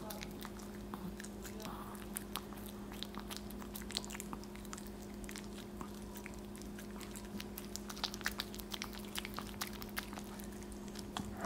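Maltese dog biting and chewing a whole potato: irregular small crunching and smacking clicks from its mouth, over a steady low electrical hum.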